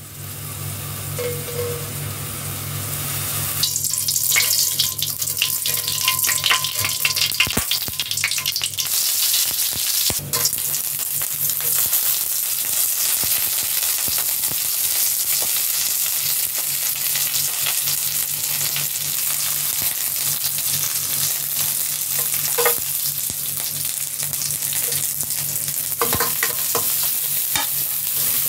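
Hot oil in a wok sizzling as curry leaves, pandan leaves and lemongrass fry in it. The oil crackles and spits sharply for a few seconds about three and a half seconds in, then settles into a steady sizzle, with a few knocks of stirring near the end.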